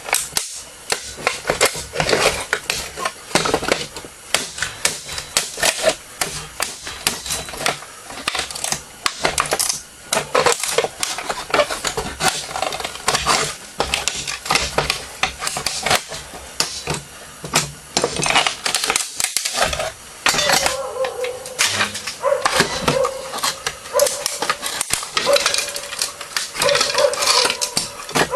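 Irregular clatter, knocks and cracks of a Sears weed eater's plastic housing and metal parts being pried, struck and broken apart with hand tools. About twenty seconds in, a dog starts whining.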